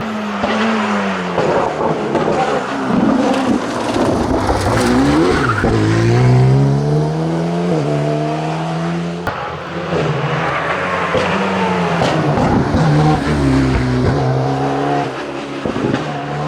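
Renault Alpine A-110 rally car engine revving hard and climbing through the gears, its pitch rising and dropping back at each shift, with tyres squealing on tarmac.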